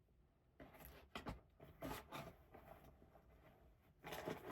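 Faint rustling and a few light clicks of small items being handled and searched through.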